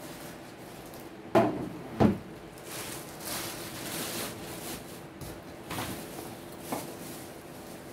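A plastic CNY portable embroidery machine knocking down twice onto a wooden workbench about a second and a half in, followed by rustling of its plastic wrapping and a couple of lighter knocks as it is handled.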